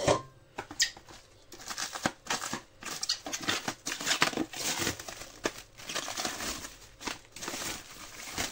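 Plastic bags holding chicken pieces crinkling and rustling as they are handled, with irregular crackles.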